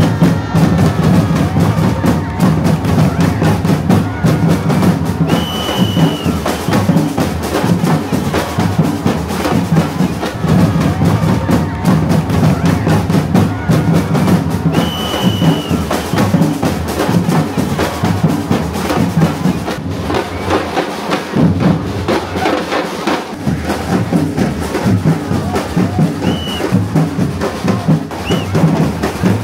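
Street drum line of bass and snare drums playing a steady rhythm, with a few short high whistle blasts over it.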